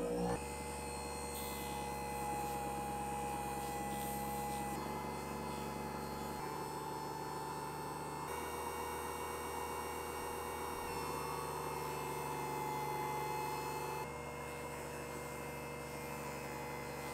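Craftplus electric edge-burnishing machine's motor running with a steady hum, its tone stepping slightly up or down a few times. The grooved burnishing wheel spins while a leather strap's edge is held against it to burnish the edge.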